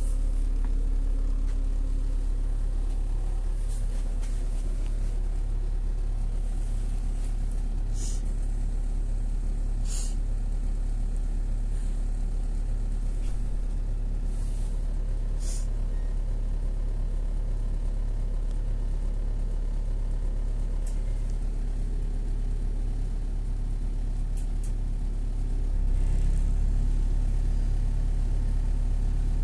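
Engine of a LiAZ 5292 city bus idling, heard from inside the passenger cabin as a steady low hum. A few short hisses come about eight, ten and fifteen seconds in, and the engine grows louder near the end.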